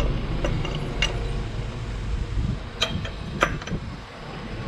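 Light metallic clicks, four or so spread over a few seconds, from the opened Buffalo 6.5 four-stroke engine as its crankshaft and camshaft timing gears are turned by hand, over a steady low rumble.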